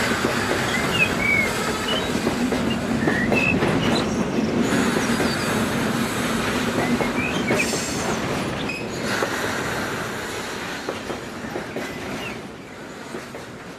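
HO scale model freight train rolling past, its wheels clicking over the rail joints with occasional short squeals from the wheels. The sound fades away near the end as the train passes.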